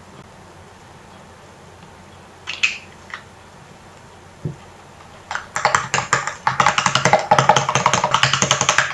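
Small metal whisk stirring a thick cream in a stainless steel bowl, clinking rapidly against the bowl from about halfway. Before that, a few single light knocks.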